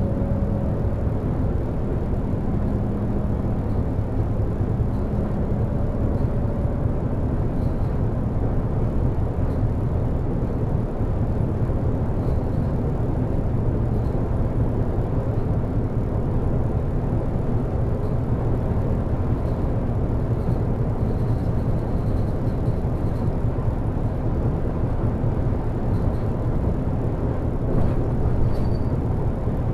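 Volvo B12BLE bus under way, heard from the driver's side: a steady low rumble from its DH12E six-cylinder diesel engine, mixed with road noise.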